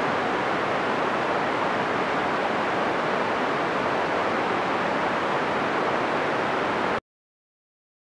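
Steady calibration noise, a hiss centred in the speech range, from an Amplivox Model 270+ audiometer's speech channel played through an SP90A active loudspeaker for free field calibration. It cuts off abruptly about seven seconds in.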